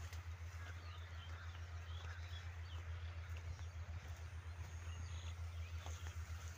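Rural field ambience: scattered small bird chirps over a steady low hum, with a few faint clicks now and then.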